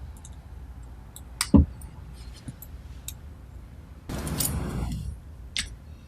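Small steel parts of a thread rolling attachment handled on a workbench: light clicks and clinks, a sharp knock about a second and a half in, a brief scrape about four seconds in, and another click near the end.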